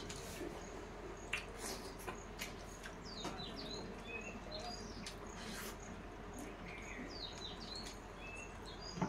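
Birds chirping repeatedly in short, high chirps, several sliding downward, with scattered soft clicks and smacks of people eating rice and curry by hand from steel plates.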